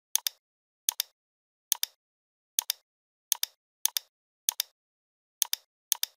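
Computer mouse button clicking nine times, each click a quick press-and-release pair, spaced irregularly about half a second to a second apart.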